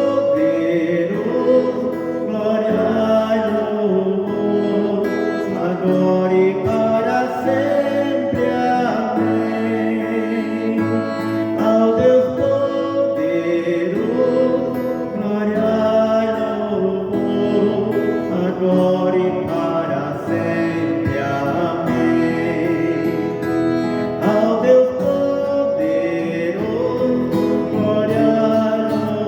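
Christian worship song played through a church sound system: guitar accompaniment with singing, continuous throughout.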